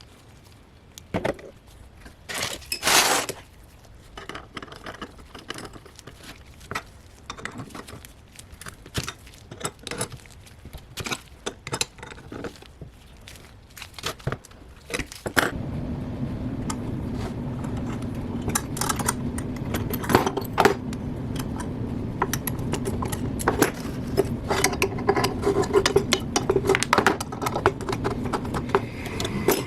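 Metal tools and parts clinking and knocking on a workbench. About halfway through, a small motor starts and runs steadily under the continuing clinks.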